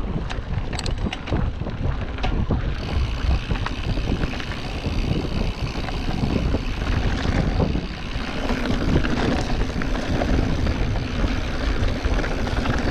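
Mountain bike riding over a dirt and gravel trail: steady rumble of tyres and rattling bike, with wind on the microphone and a few sharp clicks in the first couple of seconds.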